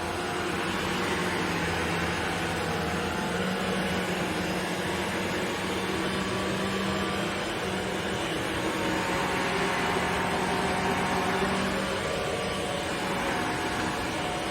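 Shark NZ801UKT upright vacuum cleaner running steadily, a steady hum with a rush of air.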